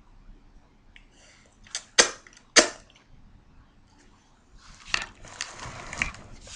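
Two loud, sharp lip smacks right at the microphone, about half a second apart, then a stretch of rustling and bumping as the webcam is swung round.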